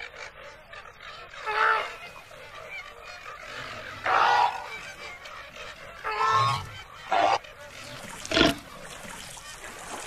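Flamingos honking: about four short, separate calls a second or two apart. Near the end comes a short, loud thump.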